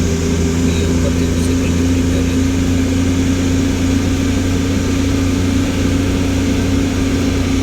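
Vehicle engine running steadily under load on a steep uphill climb, a constant low drone with a steady hum and no change in pitch.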